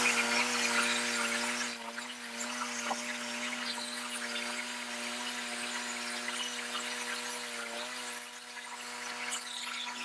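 Portable band sawmill running as its blade cuts through a knotty pine log: an engine at a steady pitch with a dense, drill-like hiss above it. It eases a little about two seconds in and then holds even.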